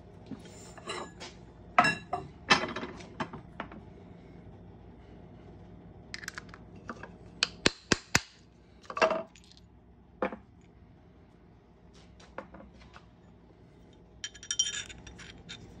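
Sharp metallic clinks and knocks of a steel ring-reducing die and arbor press being worked on a copper coin ring, with a few hard mallet strikes on the die about halfway through. A ringing metallic clink comes near the end.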